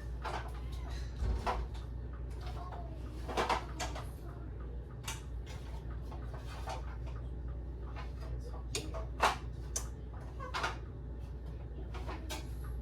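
Scattered knocks, clicks and clatters of a household item being handled and taken off, over a low steady hum.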